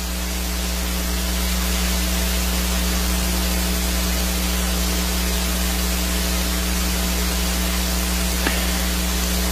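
Steady electrical hiss with a mains hum underneath, holding at an even level throughout, with no speech over it.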